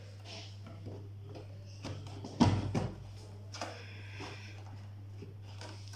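A steady low hum with scattered knocks and clunks, the loudest a sharp knock about two and a half seconds in.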